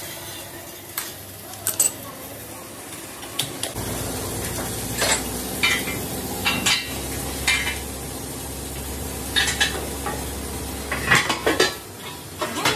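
Sharp metallic clinks, knocks and scrapes of hand tools and hands on a steel truck wheel rim mounted on a lathe. From about four seconds in until about eleven seconds, an electric motor hums low and steady underneath.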